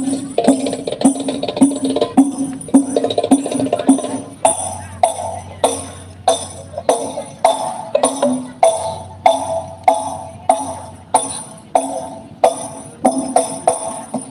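Sholawat music with frame-drum (rebana) percussion, played loud over a large outdoor PA sound system during a sound check, with a steady beat of sharp drum strikes about twice a second.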